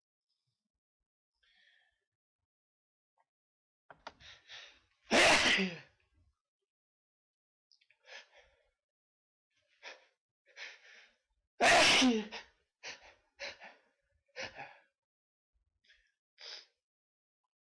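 A person sneezing twice, two loud, sharp sneezes about six seconds apart. Quick inhales come just before the first sneeze, and short breath sounds follow in between and after.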